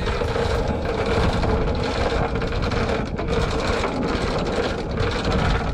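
A sailboat's engine running steadily with a constant hum as the boat motors slowly ahead up to its anchor, under heavy wind noise on the microphone.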